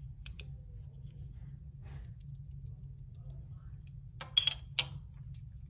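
Light plastic clicks and taps from handling a small ink pad and a clear acrylic stamp block, with a short cluster of sharper clicks a little past four seconds in, over a low steady hum.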